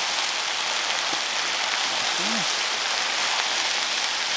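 Chicken strips, bell peppers and onion sizzling steadily on a hot steel griddle.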